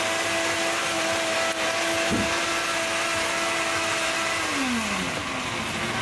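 A motor running with a steady hum over a constant noisy whir; about four and a half seconds in its pitch slides down.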